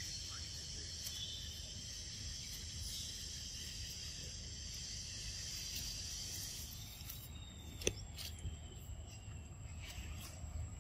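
Steady high-pitched insect chorus that fades out about seven seconds in, with a single sharp click a little after that.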